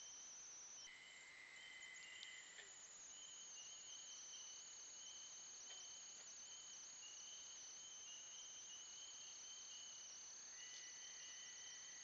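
Faint night chorus: several steady, high-pitched trills at different pitches running together, with a few faint ticks. The mix of trills shifts about a second in.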